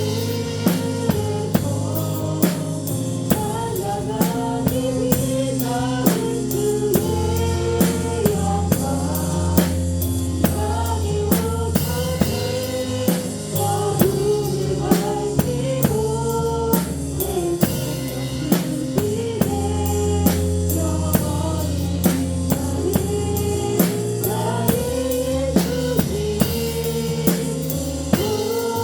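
Live worship band playing an instrumental passage, with the drum kit keeping a steady beat of kick, snare and cymbal hits under sustained melodic lines from the other instruments.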